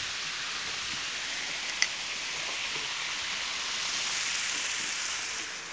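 Steady outdoor hiss, swelling slightly around the middle and easing near the end, with one faint click about two seconds in.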